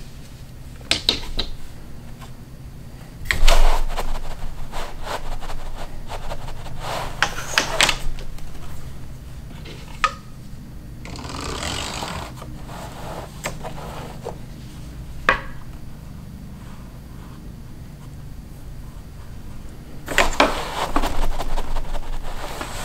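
Wooden rigid heddle loom being worked: scattered knocks and clacks as the heddle is shifted and beaten against the cloth, the strongest a few seconds in. About halfway there is a brushing rustle as the stick shuttle passes through the warp threads.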